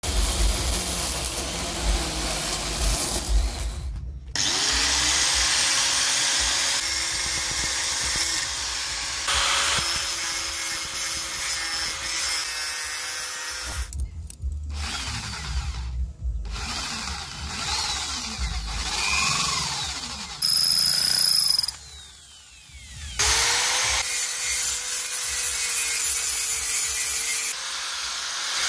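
A run of short workshop clips: twice a small electric motor spins up, rising in pitch to a steady whine, between stretches of steel being scraped and worked.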